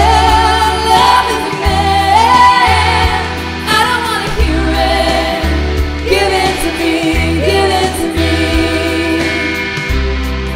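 Rock music with a female lead voice: heavy sustained bass notes under a melody that slides between pitches.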